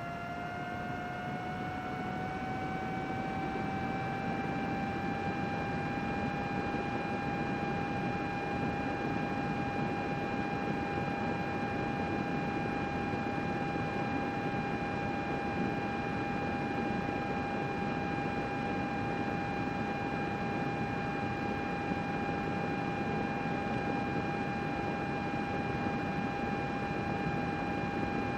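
Computer fan running: an even airy whir with a steady whine that rises slightly in pitch over the first few seconds, then holds level.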